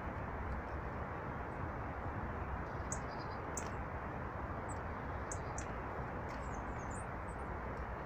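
Short, high chirps from small birds over a steady rushing background, clustered from about three seconds in, with a quick run of several notes near the end.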